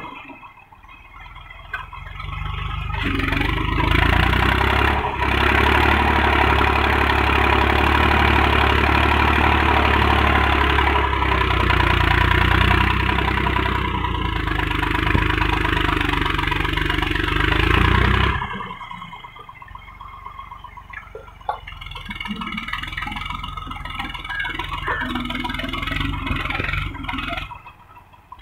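Massey Ferguson 135 tractor engine running as it pulls a three-disc plough through the soil. It swells a few seconds in, stays loud until about two-thirds through, then drops to a lower level.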